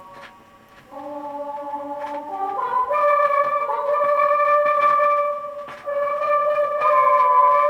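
Music from a 1980 Melodiya vinyl record of a children's song: held instrumental chords come in about a second in after a brief quiet moment and step up in pitch about two and a half seconds in. Light surface clicks from the record are scattered throughout.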